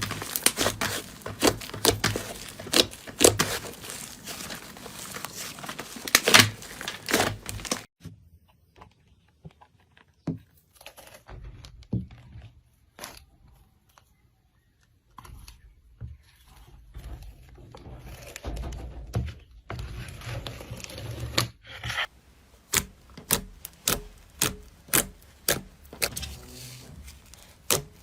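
Slime being squeezed and worked by hand, giving dense crackling and clicking. After an abrupt drop partway through there is a much quieter stretch of small clicks and sticky sounds, and near the end a run of sharp, evenly spaced pops, about one to two a second.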